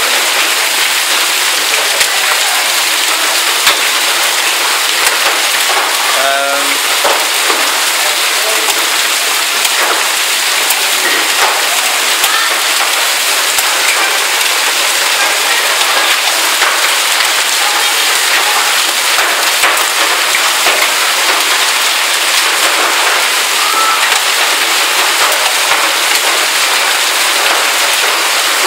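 A heavy hailstorm with rain: a steady, loud downpour dense with sharp clicks as large hailstones strike pavement, roofs and metal.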